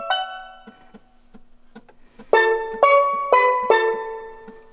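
A MIDI file playing on a Roland MT-80S's built-in sound module and speaker, with some channels muted so that only part of the arrangement is heard. Struck, keyboard-like notes ring and die away into a quiet stretch with faint ticks, then fresh chords come in about every half second from a little past two seconds in.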